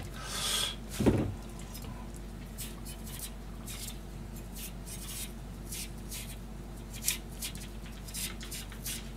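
Kitchen knife paring the skin off a daikon radish round held in the hand, giving faint scattered scraping ticks, with one knock about a second in. A steady low hum runs underneath.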